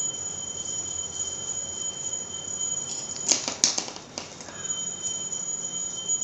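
Hands lifting and sectioning long hair: a short cluster of clicks and rustles about three to four seconds in, over a faint steady hiss.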